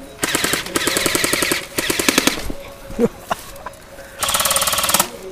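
Airsoft electric guns firing full-auto bursts, a rapid rattle of about 15 to 20 shots a second. Three short bursts come in the first two and a half seconds, then a longer one near the end.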